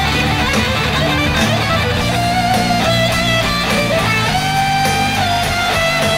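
Live hard-rock band playing, with a double-neck electric guitar taking a lead line of long held notes that slide and bend, over bass and drums. About four seconds in, the guitar slides up into a long held note.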